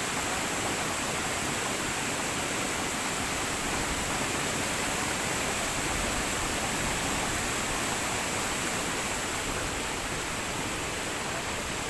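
Waterfall's water rushing steadily, a constant even noise with no breaks.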